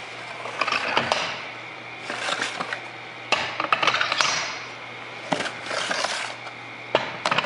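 Steel hydraulic cylinders being handled and seated onto a steel pipe-fitting installation tool on a metal workbench: several sharp metal clanks and knocks amid scraping and rubbing of metal on metal.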